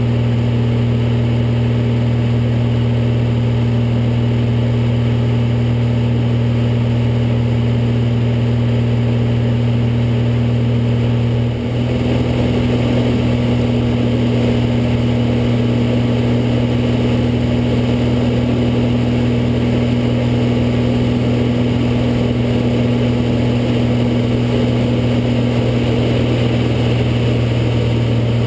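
Light propeller aircraft's piston engine and propeller droning steadily, heard from inside the cockpit. About twelve seconds in the sound dips briefly and then comes back fuller and noisier.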